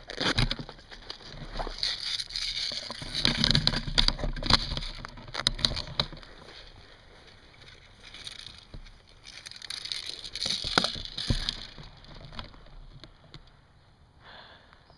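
Rustling and knocking handling noise from a gun-mounted camera as the player moves through tall grass, with a few sharp clicks; it dies down to a low background near the end.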